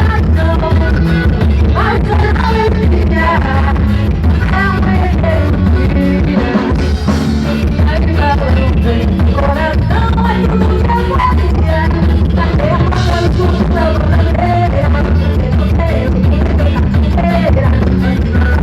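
Forró band music with a steady beat, heavy bass and a melody line.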